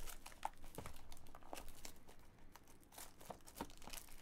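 Plastic shrink wrap crinkling and tearing in quick, irregular crackles as it is peeled by hand off a trading card box.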